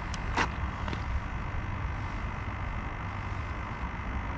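Steady low rumble of wind buffeting the microphone, with a sharp click about half a second in and a couple of fainter clicks around it as the wooden tip-up is handled over the ice hole.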